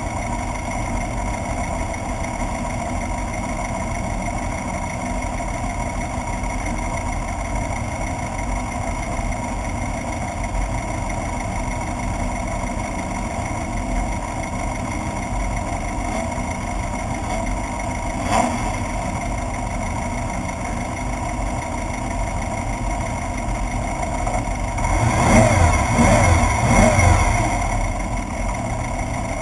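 Class 1/2-1600 off-road race buggy's air-cooled VW 1600 engine running at a steady note. A single sharp knock comes about two-thirds through. Near the end a louder stretch of a few seconds has the engine pitch rising and falling.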